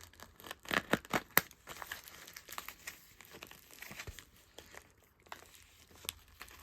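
Packaging crinkling and rustling as it is handled, with a cluster of sharp crackles about a second in, then fainter scattered rustles.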